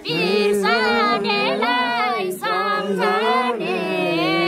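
A woman singing unaccompanied, with long held notes that bend up and down in pitch.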